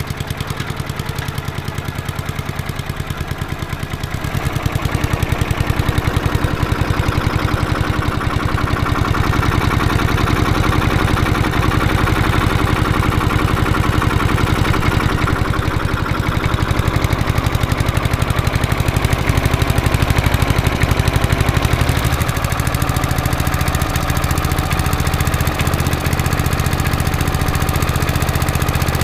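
Briggs & Stratton single-cylinder four-stroke lawnmower engine running steadily on a swapped-in spare carburettor. It picks up speed about four seconds in and eases back around twenty seconds later. The carburettor still needs tweaking.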